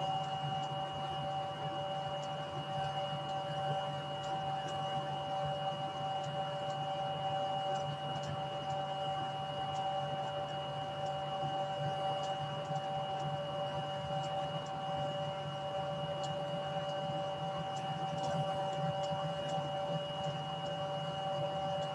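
Steady electronic hum and whine made of several held tones that never change pitch, with faint scattered ticks.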